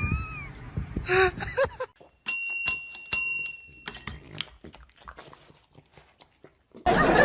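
Three quick bell-like rings, each a clear ringing tone, about two seconds in. Scattered light clicks and taps follow, and a loud rushing noise starts near the end.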